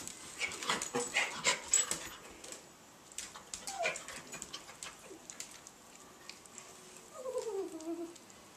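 Schipperke whimpering: a short whine falling in pitch about halfway through and a longer falling whine near the end. Light clicking in the first two seconds.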